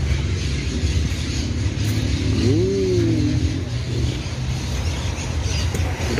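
A motor vehicle's engine running with a steady low rumble, under the general noise of an outdoor crowd.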